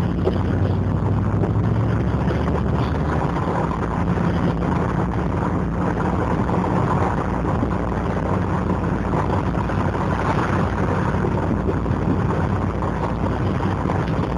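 TVR Wedge's Rover V8 burbling steadily while driving at town speed, heard from inside the car along with road and wind noise.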